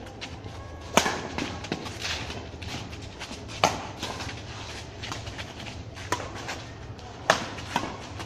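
Badminton doubles rally: rackets strike the shuttlecock five times, sharp hits a second or two apart, the last two close together, over a steady low hum.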